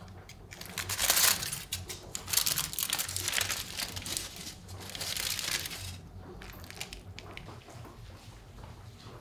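Something being crumpled and crinkled by hand, in irregular bursts for about five seconds, then a few fainter crackles.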